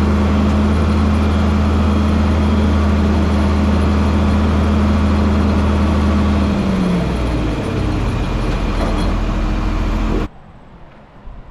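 Farm tractor engine running steadily, then throttling down with its pitch dropping about two-thirds of the way through; the sound cuts off suddenly near the end.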